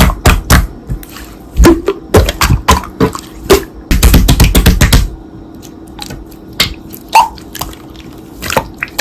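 Slime being squished and poked by hand: a run of sharp, wet clicks and pops, with a dense crackling stretch about four seconds in, then sparser pops.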